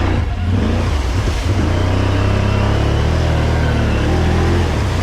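Off-road vehicle engine running steadily at low revs as it crawls through a muddy trail hole.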